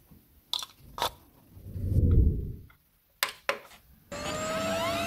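Two sharp clicks of a plug going into a wall socket, then a low rumble that swells and fades. Two clicks of a desktop PC's power button follow, and the computer starts up: steady fan noise with a rising whine near the end.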